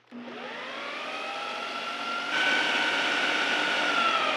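Ninja food processor motor switched on, spinning up with a rising whine and then running at a steady high pitch as it churns cold cream into whipped cream on the way to butter. It gets louder about two and a half seconds in.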